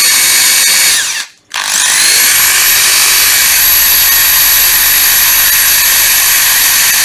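A corded 110 V Makita impact driver runs free with no load, its motor giving a high, steady whine. About a second in it winds down and stops, then spins back up with a rising pitch and runs steadily again. The seller takes this motor sound as a sign of a strong motor that will hardly burn out.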